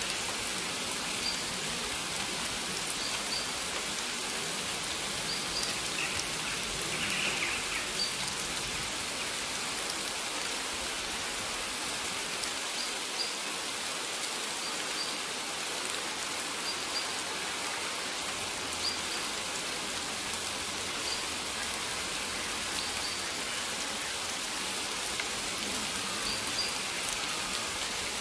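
Steady rain falling, with short high bird chirps every couple of seconds and a brighter, longer bird call about seven seconds in.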